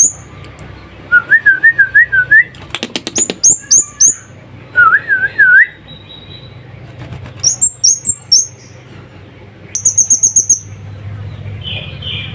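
Caged kemadi songbird calling in short bursts of sharp, very high chirps, three to eight at a time, with a fast trill about ten seconds in. Twice a lower, wavering whistle comes between the bursts, and there are a few quick clatters as it flits about the cage.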